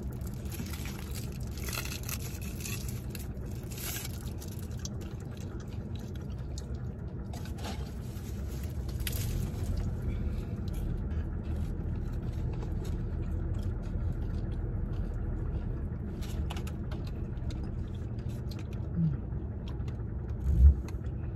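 Steady low rumble of a car cabin with the vehicle running, under eating sounds: crisp crunches and small mouth and hand noises. A short low thump comes near the end.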